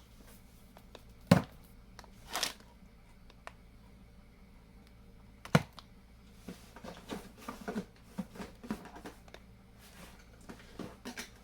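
Canned goods and food packages being handled and set down on a hard surface: a few sharp knocks, the loudest about a second in and again past five seconds, then a run of lighter taps and rustles.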